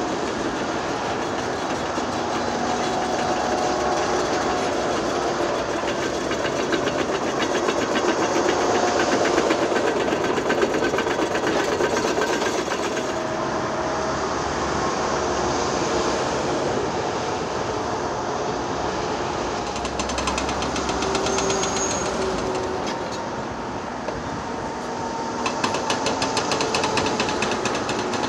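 Heavy construction machinery at work, hydraulic excavators among them: a steady diesel drone with metallic rattling and clanking, and short squealing tones here and there.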